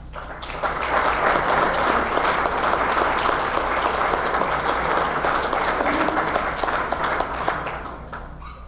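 Audience applauding: the clapping builds within the first second, holds steady, and dies away near the end.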